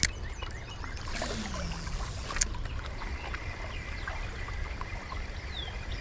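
Steady low rush of a fast, flooded river, with birds chirping faintly over it. About a second in, a brief hiss lasting about a second ends in a sharp click.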